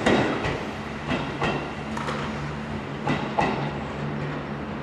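Seibu 4000-series electric train moving slowly across the depot tracks, its wheels knocking over rail joints and points in an irregular series of clacks, the loudest at the start and about three and a half seconds in, over a steady low hum.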